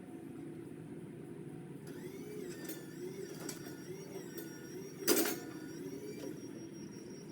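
Craftsman power limb cutter running with a wavering motor whine as it cuts into a branch, over a steady mechanical hum; a single sharp crack about five seconds in.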